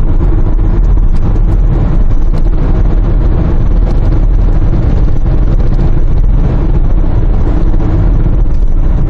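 Steady road, tyre and engine noise heard inside a Kia Grand Carnival minivan cruising on an expressway, passing through a tunnel.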